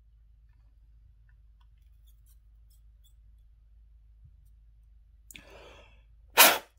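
Mostly quiet, then near the end a short, sharp blast of air blows molten solder out of a through-hole on a circuit board that a soldering iron has just heated. A fainter breath-like rush comes just before it.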